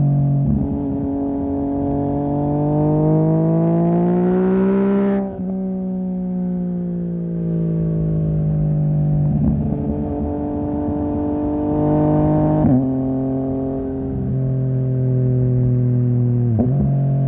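2020 Yamaha MT-09's 847 cc inline-three through a Barker full exhaust system, heard onboard under way. The revs climb steadily for about five seconds, then drop abruptly and sag slowly. The pitch jumps up sharply again about two-thirds of the way through and then holds fairly steady.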